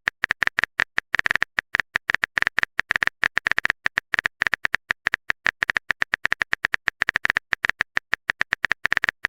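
Typing sound effect: fast, irregular clicks like keys tapped on a phone keyboard, several taps a second without a break.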